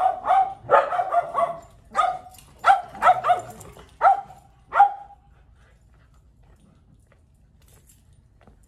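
Shetland sheepdog barking: a quick run of about a dozen sharp barks that stops about five seconds in.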